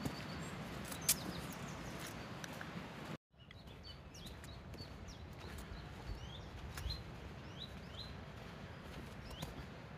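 Footsteps on a wet gravel path with birds chirping; a sudden cut about three seconds in, after which many short, quick bird chirps stand out over a quieter background.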